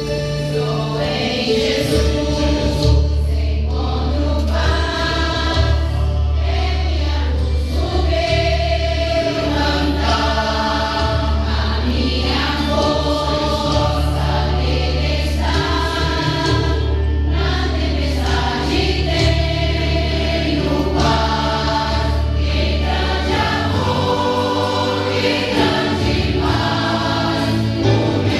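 A choir singing a gospel praise song in phrases, with a steady low bass note held underneath for most of the song. The bass drops away a few seconds before the end.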